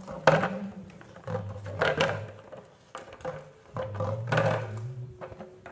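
Plastic water bottle knocking and crinkling on a stone floor as a yellow parakeet pecks and tugs at its cap with its beak, a few sharp strokes, the loudest about a third of a second in. A low hum comes and goes underneath.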